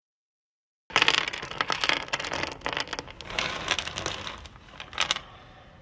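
Sound effect of pill capsules spilling and scattering across a hard surface: a dense clatter of small clicks starting about a second in, thinning out, with a last loud cluster of clicks about five seconds in.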